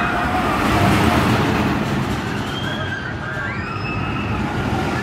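Loch Ness Monster, an Arrow Dynamics steel roller coaster, with its train running along the track through the loops: a steady rumbling roar, loudest about a second in. A few high rising-and-falling tones sound over it in the second half.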